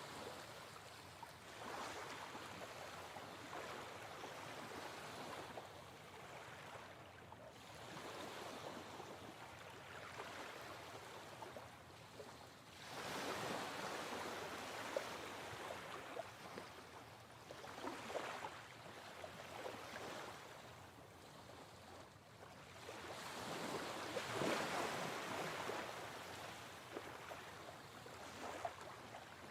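Ocean waves washing in, a rushing noise that swells and recedes in slow surges every few seconds.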